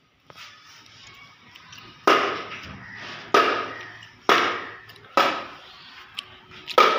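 Hollow plastic toy cricket bat striking, five sharp knocks starting about two seconds in, roughly a second apart, each ringing out briefly.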